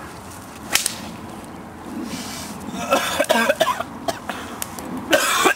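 A person coughing in short bursts, around three seconds in and again, loudest, near the end.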